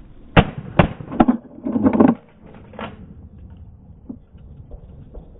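Shotgun shots from a group of duck hunters fired in quick succession, about half a second apart, with a tighter cluster of reports near two seconds in and a last shot just under three seconds in.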